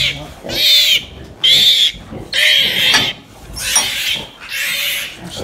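Newborn Welsh piglets squealing: about six high-pitched, wavering squeals in a row, roughly one a second.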